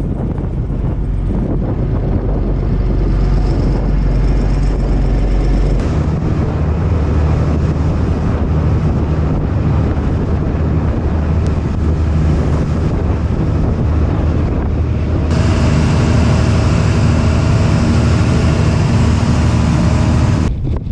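Fishing boat's engine running steadily, with wind buffeting the microphone; the sound changes abruptly twice.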